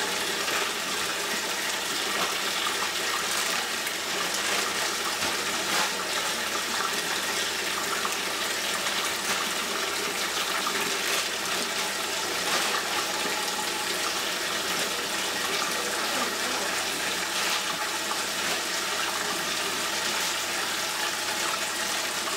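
Kitchen faucet running a steady thin stream of water into the sink basin.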